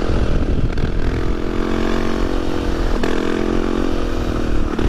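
Honda XR250 Tornado's single-cylinder four-stroke engine running at fairly steady revs through an aftermarket Belparts exhaust, while the motorcycle is ridden.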